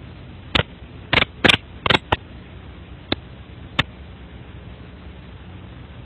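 Sharp, irregular clicks from a faulty four-year-old Dropcam camera's audio, a defect artifact rather than a real sound in the room: about seven clicks in the first four seconds, the loudest about a second and a half in, over a steady low hum and hiss.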